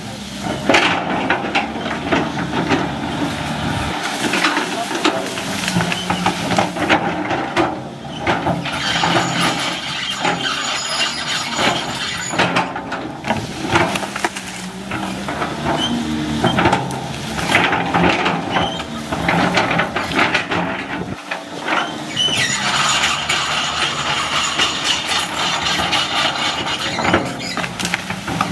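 Caterpillar 320C crawler excavator at work, its diesel engine running under load as it tracks and shoves brush and stumps with the bucket. A high metallic squeal comes in two spells of a few seconds each, about ten seconds in and again near the end.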